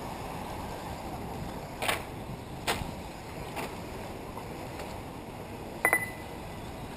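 Steady outdoor noise at an RC off-road track, with a few sharp clicks or knocks around two to four seconds in. About six seconds in comes a short, pulsed electronic beep.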